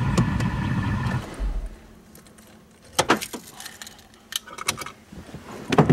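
Parked car's engine idling, then shut off about a second in. After that, a bunch of car keys jingles in several short bursts.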